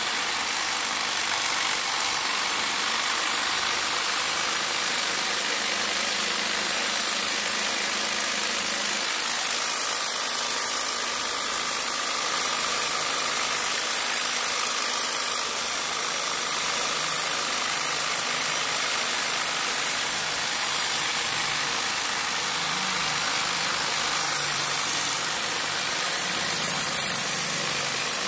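Ryota electric jigsaw, modified with a long straight cloth-cutting knife blade, running steadily as the reciprocating blade cuts down through a thick block of foam.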